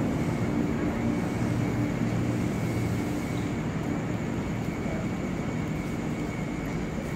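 KRL Commuter Line electric train pulling away from the platform: motor hum and wheel-on-rail noise, with a low steady tone that fades about three seconds in as the train draws off, the whole sound slowly growing quieter.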